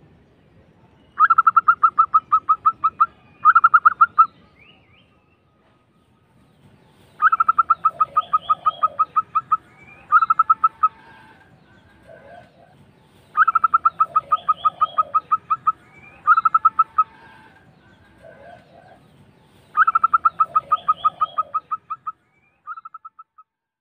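Zebra dove singing its rolling song: four phrases of fast staccato coos, each a quick run of notes followed by a shorter second run, with a brief extra burst near the end.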